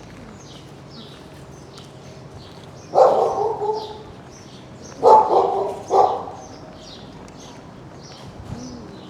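A dog barking three times, the first about three seconds in and two more close together about five and six seconds in. Small birds chirp in quick high notes throughout.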